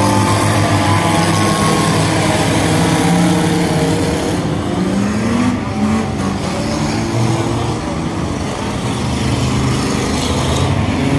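A field of stock passenger cars racing on a dirt oval, many engines running at once and revving, their pitches rising and falling as the pack goes around.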